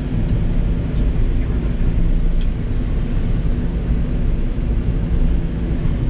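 Steady rumble and low drone of a moving passenger train, heard from inside its dome car.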